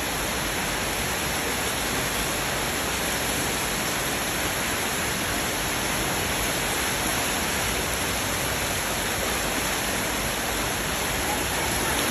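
Heavy rain pouring onto a flooded paved courtyard: a steady, even hiss that holds without a break.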